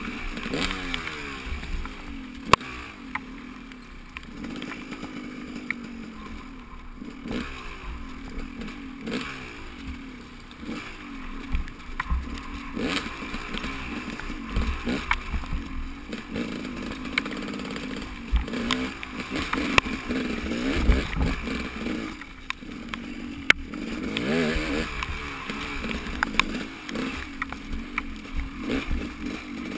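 Engine of a ridden motor vehicle, likely a motorcycle, running and repeatedly rising and falling in pitch as the throttle opens and closes, with scattered knocks and rattles and a low rumble underneath.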